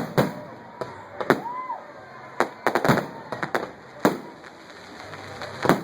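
Firecrackers going off: about a dozen sharp, irregular bangs, several in quick succession near the middle.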